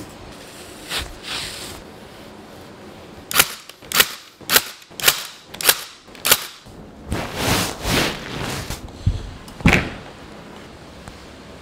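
Ryobi CompressionDrive cordless stapler firing staples through velvet upholstery into a wooden frame: a quick run of six sharp shots about half a second apart, then a couple of softer rustling swells and one more shot near the end.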